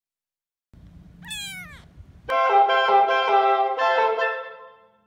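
Two oboes and an English horn starting to play together, entering suddenly about two seconds in with held chords that shift about a second later and fade away near the end. Just before the entry, a short cry falling sharply in pitch over a faint low room rumble.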